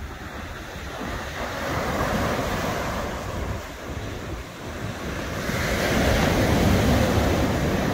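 Surf breaking on a sandy beach, the wash swelling louder about a second and a half in and again from about five and a half seconds, with wind buffeting the microphone.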